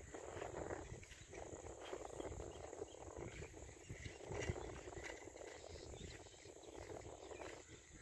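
Faint rural ambience: a low rustle that swells and fades every second or so, with a few faint chirps.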